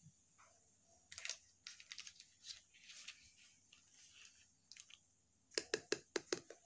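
Faint kitchen handling noises as ingredients are added to a mixer-grinder jar: scattered light clicks and rustles, with a quick run of sharper clicks about five and a half seconds in.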